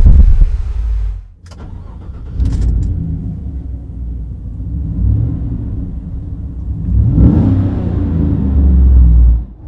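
Chevrolet Silverado pickup's engine and exhaust. After a brief lull the engine runs from about two and a half seconds in, is revved with a rising pitch about seven seconds in, and holds a loud low rumble before the sound cuts off sharply near the end.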